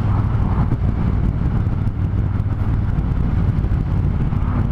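Triumph Thunderbird Storm's parallel-twin engine running steadily, with a low, even hum and a rush of wind and road noise over the helmet mic.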